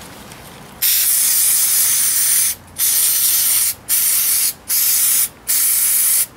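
Aerosol cleaner spraying in five hissing bursts with short pauses between, washing old oil and grime off greasy tractor parts. The first burst is the longest.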